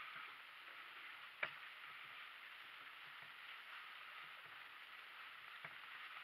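Faint sounds of a donkey-drawn cart on the move over a dirt track: a steady rustling hiss with soft, fairly regular low thuds, and one sharp click or knock about a second and a half in, with a smaller one near the end.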